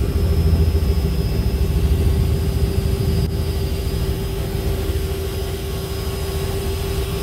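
Helicopter in flight heard from inside the cabin: a steady low drone of engine and rotor with a steady whine above it.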